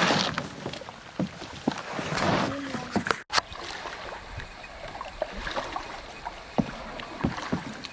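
Canoe paddles knocking and scraping against the canoe and the shallow bottom while a canoe is pushed off from the bank, in scattered short knocks.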